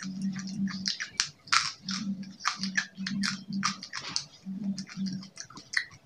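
Close-miked chewing of fried quail: a dense, irregular run of wet crackles and crisp crunchy clicks, with a low hum that pulses with each bite.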